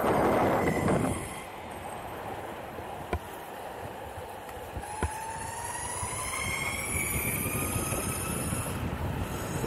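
Electric skateboard's Boundmotor hub motors whining, the pitch climbing steadily through the second half as the board speeds up, over a steady rush of wheel and wind noise. Loud wind buffeting in the first second and two sharp clicks midway.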